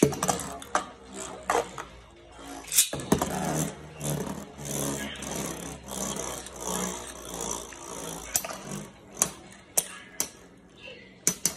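Beyblade spinning tops launched into a plastic stadium with a sharp rip at the start, then spinning and clacking against each other and the stadium walls, with many sharp knocks.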